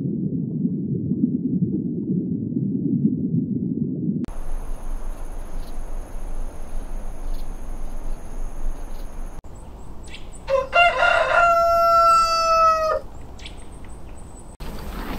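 A rooster crowing once, about eleven seconds in: one long crow of just over two seconds, held on one pitch and cut off sharply. Before it, a low rushing noise for the first four seconds gives way to an even hiss with two faint, steady high tones.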